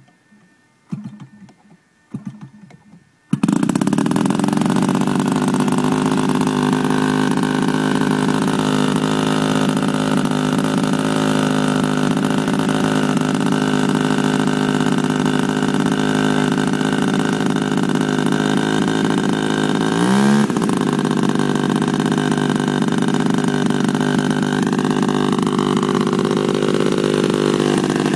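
Model biplane's engine catching about three seconds in after a few short attempts, then running steadily, with a brief change in pitch about twenty seconds in.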